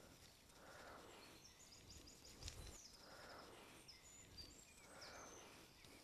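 Near silence: faint outdoor background with a few faint, short, high-pitched chirps and a faint click about halfway through.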